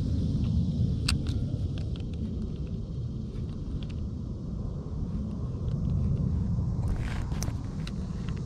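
Steady low rumble of wind buffeting the microphone, with a few light clicks about a second in and again near the end from handling the baitcasting rod and reel.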